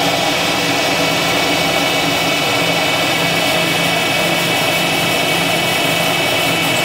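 Milling machine spindle running a small end mill through a thin aluminium plate: a steady, even whine with several held tones over a hiss.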